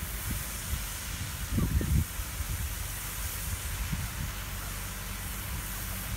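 Steady hiss of a pond fountain's spraying water, with gusts of wind rumbling on the microphone, strongest about one and a half seconds in.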